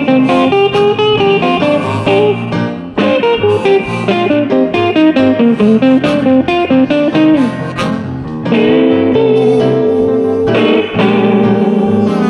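Blues music: an electric guitar plays a lead line over a steady band backing.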